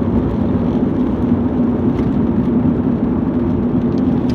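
Road and engine noise inside a moving car's cabin: a steady drone with a constant low hum.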